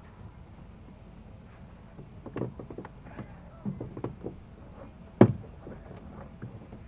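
Knocks and taps of hands and hardware against a Chevrolet Blazer's door panel as the 8-inch door speaker is worked out of its opening. A run of small clunks comes in the middle, then one sharp, loud knock a little after five seconds in.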